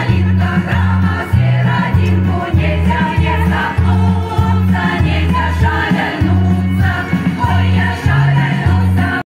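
Music with voices singing together over a loud, evenly pulsing bass line.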